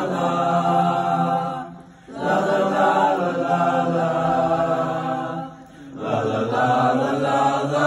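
Group of junior-high boys singing the wordless "la la la" refrain together, unaccompanied, in long held phrases with short breath pauses about two seconds in and again past five seconds.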